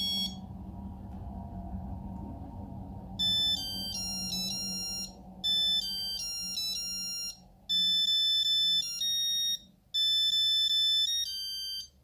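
Nokia 8210 monophonic ringtone beeping a short electronic melody from the phone's small speaker. One tone cuts off just after the start; about three seconds later the next ringtone begins, a repeating tune played as four phrases of about two seconds each.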